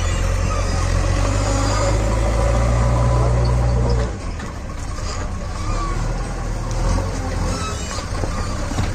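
A motor vehicle engine running, a steady low rumble that drops off sharply about four seconds in and carries on more faintly.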